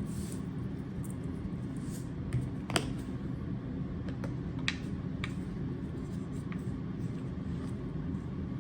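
A few light clicks and taps from kitchen utensils being handled while measuring seasoning, the sharpest about three seconds in, over a steady low hum.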